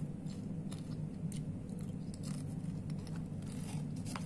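Chips being chewed, with scattered soft crunches over a steady low hum.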